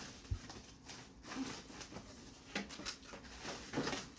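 Scattered light knocks, clicks and rustles of a pressure washer's plastic surface-cleaner attachment and its packaging being handled.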